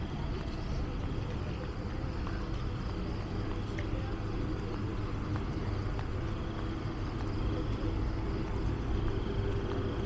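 Steady low rumble of street traffic in an outdoor city setting, with faint voices in the background.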